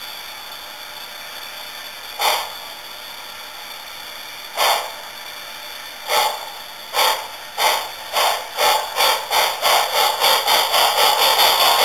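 Sound-equipped HO-scale 3800-class 2-10-4 steam locomotive model #3829 starting its train: steam exhaust chuffs over a steady hiss, a few slow and widely spaced at first, then quickening steadily until they nearly run together near the end.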